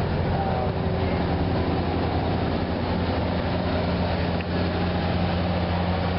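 A boat's engine running steadily, a constant low hum with no change in pace.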